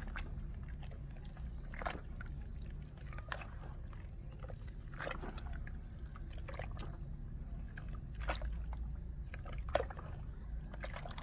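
Dry multani mitti (Fuller's earth clay) crunching and crumbling close to the microphone in irregular crackles, over a steady low hum.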